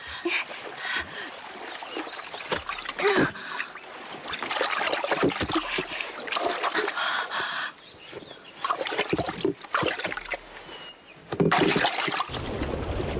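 Water splashing and sloshing in a lake in irregular bursts as someone thrashes about at the surface. A deep low rumble sets in near the end.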